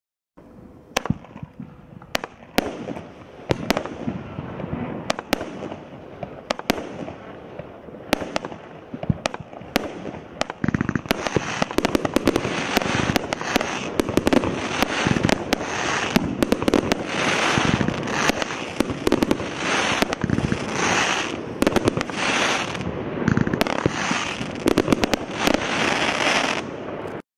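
Hallmark Terra Ferma 25-shot firework barrage cake firing: a run of sharp shots and bursts, joined by dense crackling from about halfway through.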